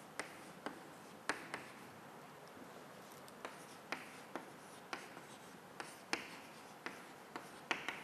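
Chalk writing on a chalkboard: a string of sharp, irregular taps, some drawn out into short scratchy strokes.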